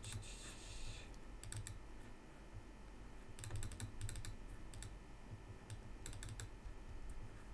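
Computer keyboard keys clicking in short, scattered clusters of keystrokes, over a low steady hum, with a soft hiss in the first second.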